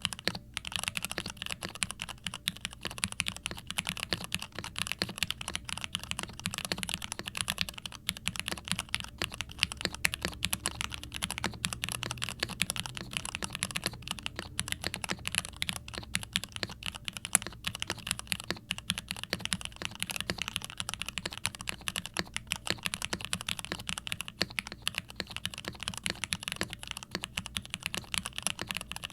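Continuous fast typing on a TKC Portico68 V2 prototype mechanical keyboard fitted with stock Cherry MX Hyperglide Red linear switches, in an injection-moulded plastic, gasket-mounted case with an FR4 plate, foam and doubleshot keycaps. The keystrokes have a scratchy, full Cherry switch sound.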